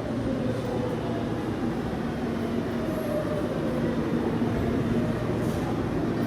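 Tokyu electric commuter train running along the platform: a steady rumble of wheels on rails, with a motor whine that drifts slowly down in pitch as the train slows.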